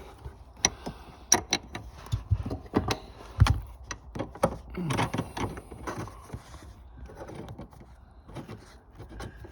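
Irregular clicks and knocks of a seat mounting bolt being fitted and threaded in by hand, metal on metal, with the loudest knock about three and a half seconds in.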